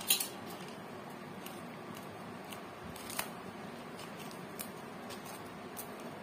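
A hand mixing wheat flour and water into dough in a steel bowl: faint scratchy rustling, with a few faint clicks.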